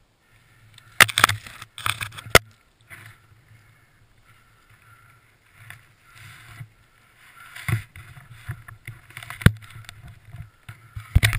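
A small snow-covered conifer being dragged and broken off a stuck snowmobile: rustling of branches and snow, with a few sharp cracks, the loudest about a second in, at about two seconds and again near the end.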